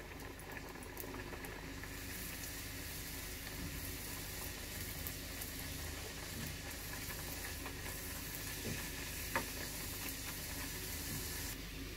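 A chana dal puri deep-frying in hot oil in a kadhai, the oil sizzling steadily as it bubbles around the puri. A couple of faint clicks from the steel slotted spoon come late on.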